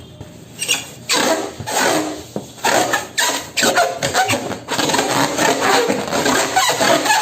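Plastic balloon packaging crinkling and rustling as it is handled. A dense, irregular crackle starts about half a second in and carries on.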